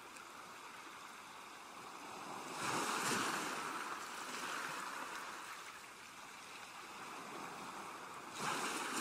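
Sea waves washing in: a steady hiss of surf that swells up about two and a half seconds in and again near the end.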